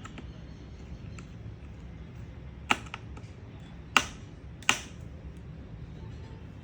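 Three sharp clicks of small hardware against the open laptop as the heatsink screws are being fitted: a pair about a second apart, then another soon after, over a low steady hum.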